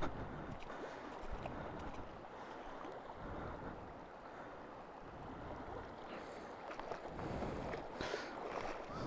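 A river running fast over its bed, a steady rushing of water, with some wind buffeting the microphone near the end.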